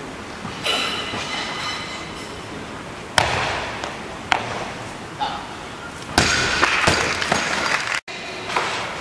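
Barbell loaded with rubber bumper plates dropped onto the lifting platform after a clean and jerk: a loud crash about six seconds in, then a few bounces and rattles. Earlier, a single sharp thud as the lifter's feet slam down into the split of the jerk.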